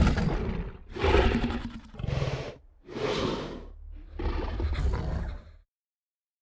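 Tyrannosaurus rex roar sound effects: a loud roar tails off at the start, followed by four more roars and growls about a second apart, the last one longer, stopping a little over five seconds in.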